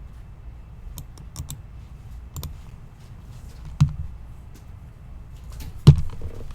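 Scattered clicks of computer keys and mouse buttons while copying and pasting, with two louder knocks about four seconds in and near the end.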